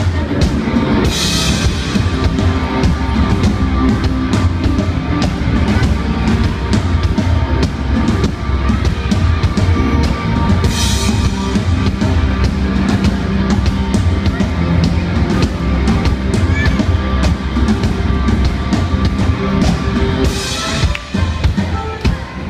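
Live rock band playing loud: a drum kit keeping a steady beat under the full band, with cymbal crashes about a second in, near the middle and near the end. The music dips briefly just before the end.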